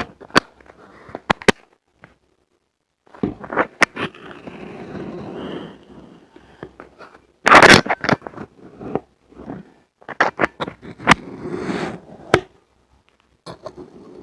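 Colored magic sand being cut and crunched: sharp crisp clicks and grainy crunching scrapes with brief pauses. The loudest, densest crunch comes about halfway through.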